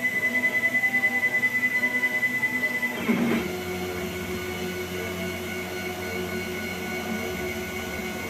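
DIY CNC machine's stepper motors whining at a steady high pitch with a pulsing beat. About three seconds in, the pitch sweeps down and settles into a lower steady hum as the motion changes.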